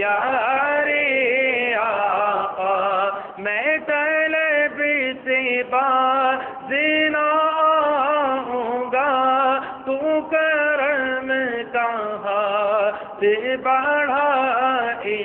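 A man's voice chanting devotional verse into a microphone, in long drawn-out phrases whose notes waver up and down, with short breaths between the phrases.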